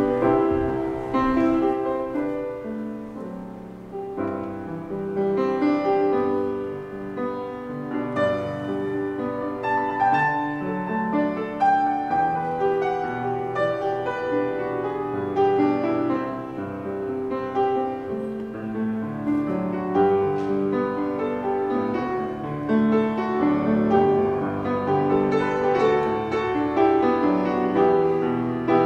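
Piano playing a continuous run of notes, an unbroken instrumental piece with no singing.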